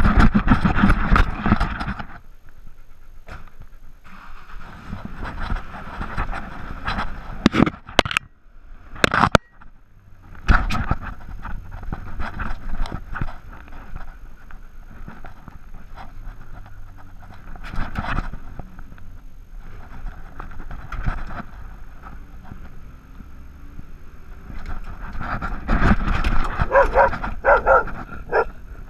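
A dog barking and whining at intervals, with the loudest clusters near the start and near the end, picked up close by a camera strapped to a dog's harness.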